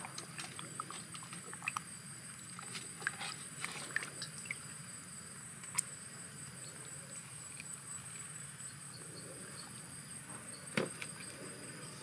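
Small wet clicks and squelches of fingers working the cut flesh of a raw stingray, over a steady high-pitched insect trill.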